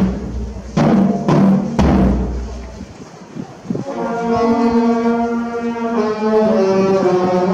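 Band music for the Epitaphios procession: bass drum strikes over a held chord in the first two seconds, then, after a short lull, a slow melody of long held brass notes from about four seconds in.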